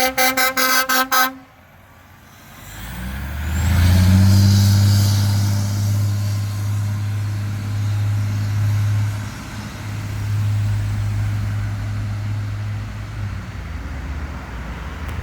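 A fire truck's horn sounded in rapid short blasts, about five a second, for the first second or so. After a brief lull comes the low, steady drone of a fire truck's engine going by, loudest about four seconds in and then easing off.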